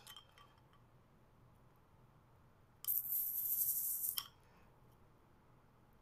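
Cap prised off a carbonated glass bottle with a keychain flashlight's built-in bottle opener: a short hiss of escaping gas, about a second and a half long, starting about three seconds in and ending in a light click.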